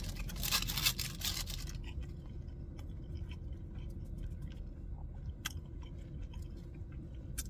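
A person biting into and chewing a chicken tender sandwich on a brioche bun. The first couple of seconds are loud and crunchy, then quieter chewing with small clicks over a steady low hum.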